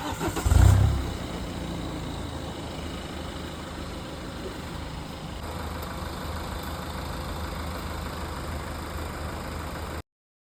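BMW 525d diesel engine with a loud low surge about half a second in, then settling to a steady idle.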